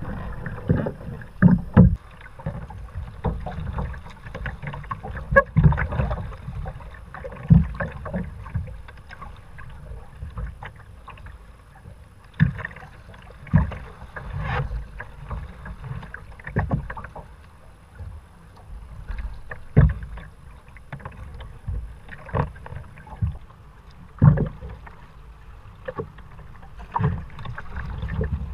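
Sea kayak being paddled: irregular splashes of the paddle blades and water slapping against the hull, over a low rumble of water and air on the microphone.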